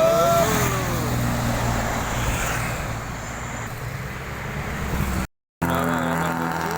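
Road traffic with a heavy vehicle's engine running steadily, most likely a passing bus. A pitched sound fades out in the first half-second. About five seconds in, the sound cuts out completely for a moment and then resumes.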